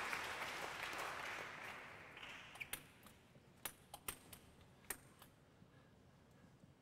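Applause dying away, then about six sharp clicks of a celluloid table tennis ball being bounced as a player readies his serve.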